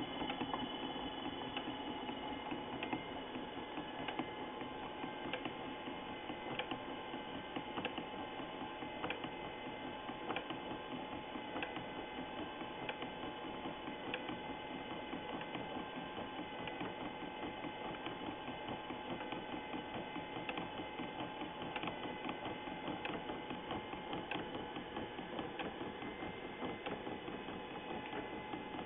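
A mini-lathe turning a Teflon rod while a 12 V windshield-wiper gearmotor drives the threaded feed rod that pushes the rod through the collet. The machines run with a steady whine and a light click about every second and a quarter.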